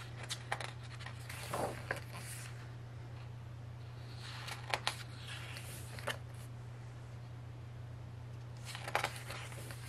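Pages of a photobook being turned and handled: short paper rustles and clicks in three bursts, over a steady low hum.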